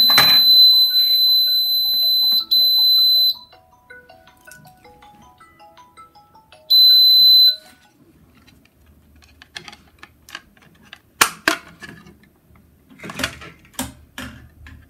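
A fire alarm control panel's piezo buzzer gives a steady high-pitched alarm tone, set off by an activated manual call point. The tone stops about three seconds in and returns as one short beep around seven seconds in. Toward the end come several sharp plastic clicks as the call point is handled.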